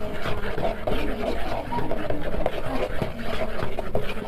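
A spoon stirring cake batter in a plastic mixing bowl, with rapid irregular clicks and scrapes against the bowl.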